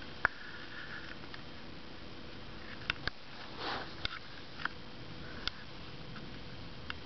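Small scattered clicks and taps, the loudest a sharp click just after the start, over a low steady hiss, with one short sniff about three and a half seconds in.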